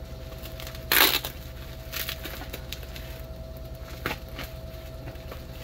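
A blade cutting into a parcel wrapped in yellow plastic packing tape, which is then torn open: one loud crackling tear about a second in, followed by a few smaller crackles and clicks.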